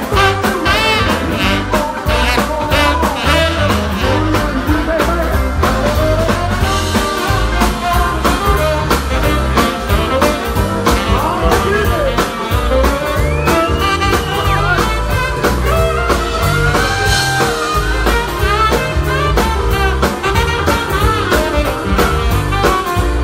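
Live band playing blues-style music with a steady drumbeat and a lead line that bends and slides in pitch.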